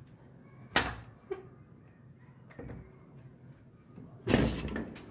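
A sharp knock about a second in and a couple of fainter taps, then a short, louder clatter near the end.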